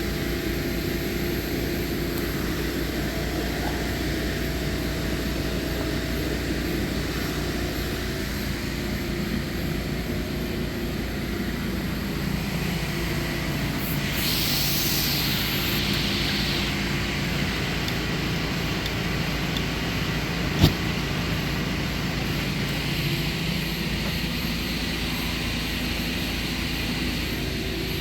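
Motor-driven air compressor running steadily while a tractor tire is aired up to seat its bead. A burst of hissing air comes about fourteen seconds in and lasts a couple of seconds, and a single sharp click comes about twenty seconds in.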